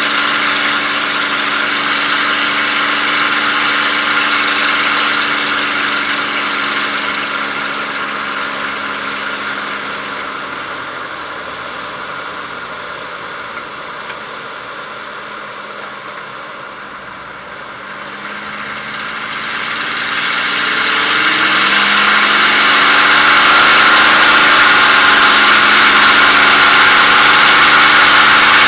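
P-51 Mustang's Packard Merlin V-12 engine, heard from inside the cockpit, throttled back for landing. Its steady drone fades gradually to its quietest about two-thirds of the way through. About 21 seconds in the engine note climbs and it runs loud again to the end.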